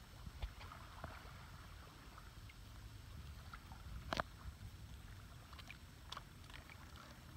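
Light water sounds and small scattered ticks over a low steady rumble. About four seconds in, a single short sharp puff is heard as a bottlenose dolphin surfaces close by and exhales through its blowhole.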